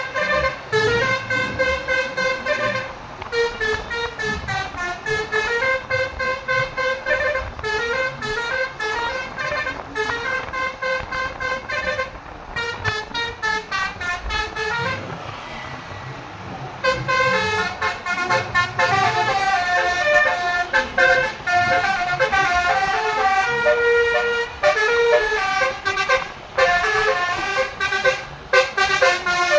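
Basuri multi-tone vehicle horn playing fast melodic runs, the notes stepping up and down in quick succession, with a short break about twelve seconds in and a longer one around the middle.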